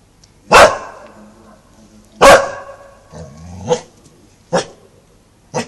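A Labrador retriever barking, five single barks a second or so apart, the first two the loudest and the last ones shorter and quieter.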